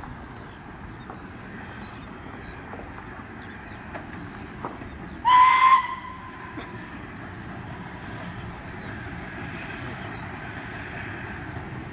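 Steam locomotive whistle: one short, loud blast about five seconds in, over a steady background hum.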